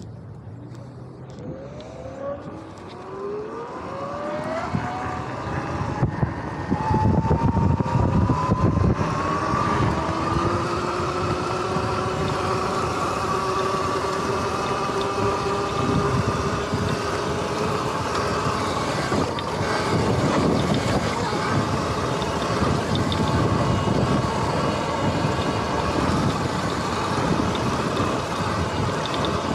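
Sur-Ron X electric dirt bike's motor and drivetrain whining, rising in pitch as it accelerates over the first several seconds, then holding a steady whine at speed. Wind buffeting the microphone and the rumble of tyres over grass grow louder from about seven seconds in.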